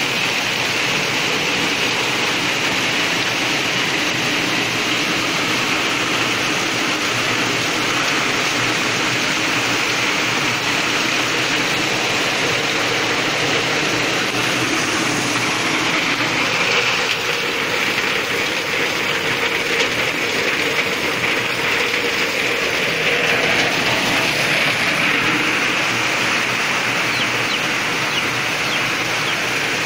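Rain falling steadily on corrugated sheet-metal roofs and walls, an unbroken hiss.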